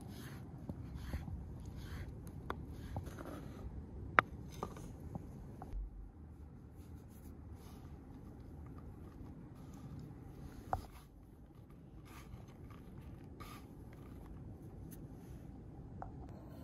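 Kitchen knife cutting rolled noodle dough on a wooden cutting board: a run of soft taps on the wood, with a couple of sharper knocks, then quieter rustling as hands toss the floured strips.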